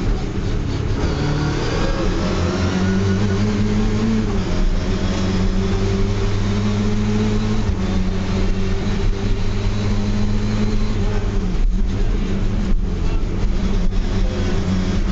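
Lada VFTS rally car's four-cylinder engine running hard at high revs, heard from inside the cabin. Its note rises a second or two in, holds high, and breaks off briefly twice near the end.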